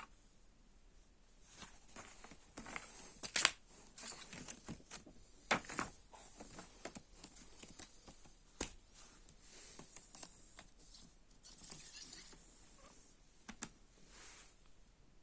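Handling noises of a CD case and its packaging: rustling and crinkling with several sharp clicks, the loudest about three and a half seconds in.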